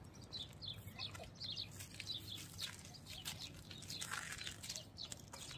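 Faint chirping of small birds: many short high calls scattered throughout.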